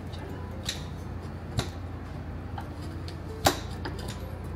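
Kitchen scissors snipping kimchi held with metal tongs in a ceramic dish: a handful of sharp clicks, the loudest about three and a half seconds in, over a low steady hum.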